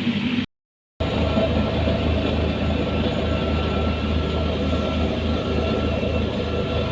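Heavy construction machinery engine running steadily with a low, even drone and a faint high whine. It drops out for half a second at an edit about half a second in.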